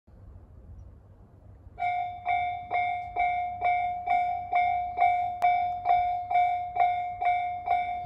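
Japanese level-crossing electronic warning bell of the Tobu Tojo type, starting about two seconds in and sounding a steady ding-ding about twice a second: the crossing is warning of an approaching train.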